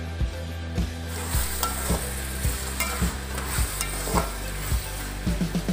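Chopped vegetables sautéing in oil in a pan, stirred with a spatula that knocks and scrapes against the pan at a steady pace. A sizzling hiss comes up about a second in.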